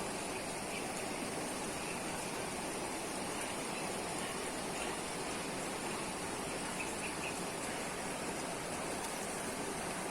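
Steady rush of river water running over rocks, with a few faint short chirps about seven seconds in.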